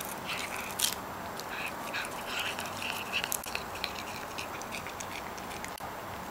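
A cat biting and chewing fresh cat grass: a quick run of crisp crunches and snaps of the blades, which thins out about four seconds in.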